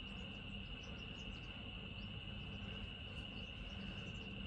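Faint steady high-pitched tone in the background, unbroken throughout, over low room noise.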